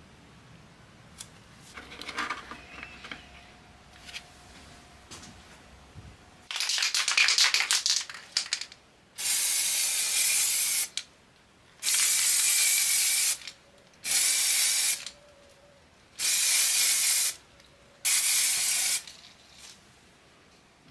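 Aerosol can of heat-resistant spray paint: a short spell of rattling, typical of the can being shaken, then five steady hissing sprays of about a second or so each with short pauses between them.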